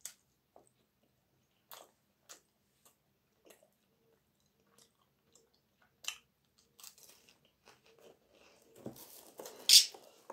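A person eating close to the microphone: sparse, crisp crunches as she bites and chews a dry cracker. Near the end comes a louder burst of crackling and rustling.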